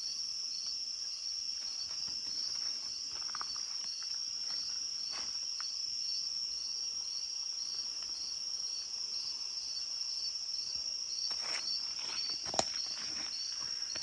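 Night insect chorus of crickets or katydids: a steady high-pitched trill with a second call pulsing about twice a second beneath it. A few brief rustles and a sharp click come as leaves are handled, mostly near the end.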